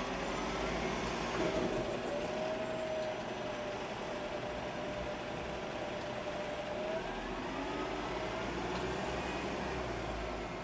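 A vehicle engine running steadily in the background, with a slowly wavering tone.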